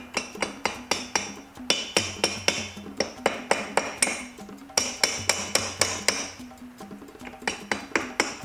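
Rubber mallet tapping a two-stroke scooter cylinder to drive it down over the piston, which is sticking on the way on. A quick series of sharp taps, about four a second, in several runs with short pauses between.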